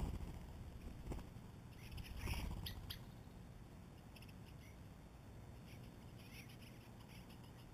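A brief flutter of wings as European starlings take off from a ground feeder, then a louder rustle about two seconds in, with faint high bird chirps scattered through.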